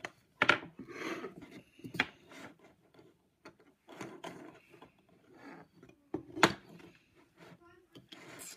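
A wooden string puzzle being handled: a few sharp wooden knocks, the loudest near the end, among softer rubbing and scraping as the string and hoop are worked around the post.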